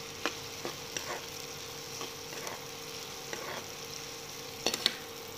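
Chopped onions sizzling in hot oil in a nonstick pan while being stirred with a steel ladle, which scrapes and clicks against the pan now and then. A few sharper knocks of the ladle near the end. The onions are being lightly sautéed to soften them.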